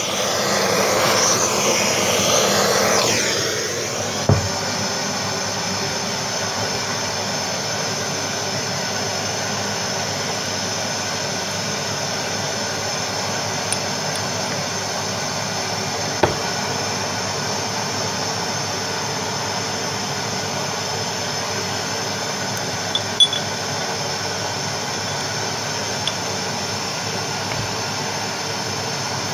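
Gas-cartridge blowtorch flame hissing steadily as it heats the aluminium transfer-box casing at the rear bearing housing, ready for the new taper-bearing outer race to be fitted. The hiss is louder for the first few seconds, with a few light metal clicks and clinks scattered through.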